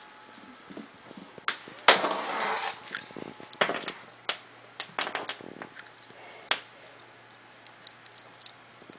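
A Bengal kitten scuffling as it plays with a dangled toy: a sharp knock about two seconds in, a short burst of noise, then scattered taps and clicks.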